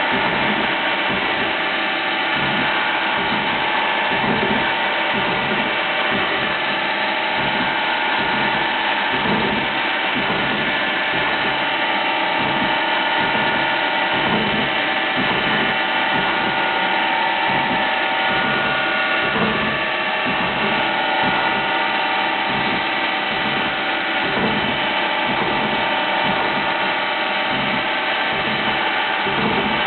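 Fadal CNC mill machining: a continuous mechanical sound with several steady tones over a fast, uneven rattle.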